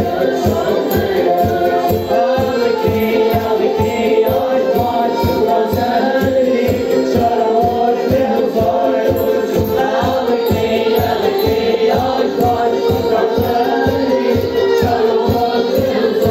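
Madeiran folk music for a folk dance: group singing over instruments, with a steady, quick beat.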